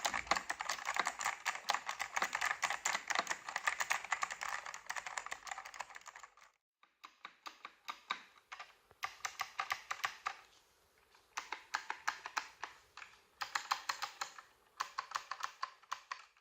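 Typing on a KB-8851 mechanical keyboard with Alps.tw Type T5 Alps-style switches: fast, continuous keystrokes for about six seconds, then shorter runs of keystrokes separated by brief pauses.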